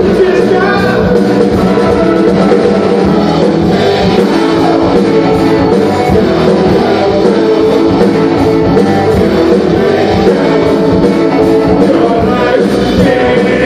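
Live rock band playing loud amplified music on electric and acoustic guitars, keyboards and drums, with some singing.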